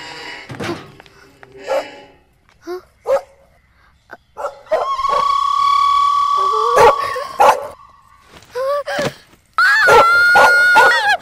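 A dog barking in short calls, with a long held high note in the middle. Near the end a woman screams loudly.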